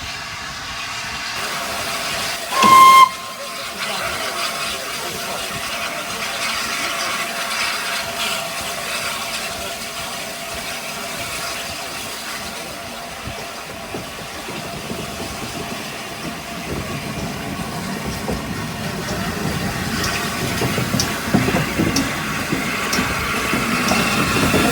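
A short, loud blast on the steam whistle of 60163 Tornado, a Peppercorn A1 Pacific steam locomotive, nearly three seconds in. Steady steam hiss follows and grows louder toward the end.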